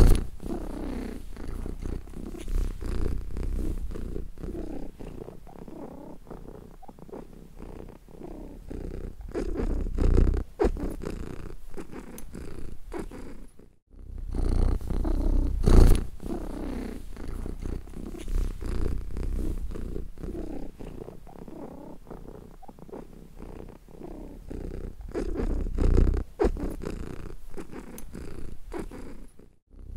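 Domestic cat purring close up, a fast rumbling pulse that swells and fades in loudness. It breaks off for a moment about halfway through and again near the end, where the recording loops.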